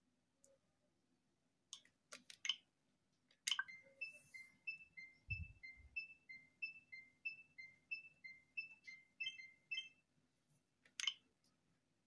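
Faint electronic sounds: a few sharp clicks, then a short two-note beep repeating about three times a second for some six seconds, with more clicks near the end.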